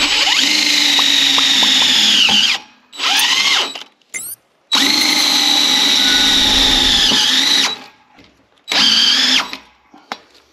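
Cordless drill with a hex driver running self-tapping screws down through a steel trailer-tongue base plate, in four runs: two long ones of about three seconds and two short bursts. The motor whine dips in pitch at the end of each long run before stopping, as the screw seats.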